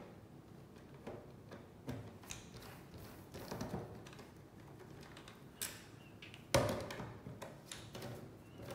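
Screwdriver backing small screws out of an iLife 4 robot vacuum's plastic bottom plate: scattered light clicks and taps of metal on plastic, with one louder knock about two-thirds of the way in.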